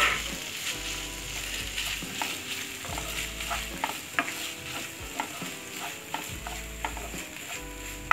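Flaked fish and fried onions sizzling in a non-stick frying pan while a wooden spatula stirs and scrapes them, with scattered light taps of the spatula on the pan and a sharper knock at the end.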